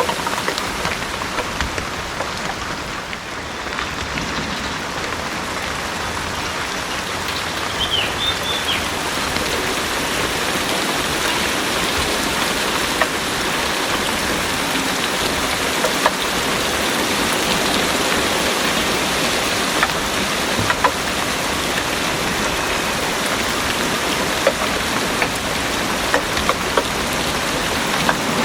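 Heavy rain pouring steadily, with scattered louder drops ticking through the hiss.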